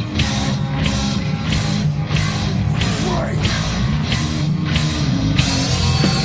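Thrash metal band playing an instrumental passage: distorted guitar and bass riffing over drums, with a hit about twice a second. About five seconds in the beat gives way to long held, slightly bending guitar notes.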